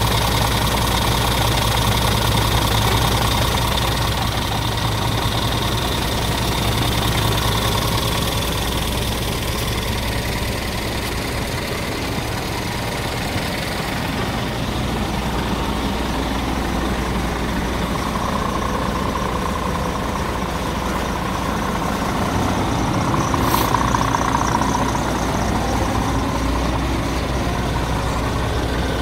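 Scania R450 tractor unit's 13-litre six-cylinder diesel engine idling steadily.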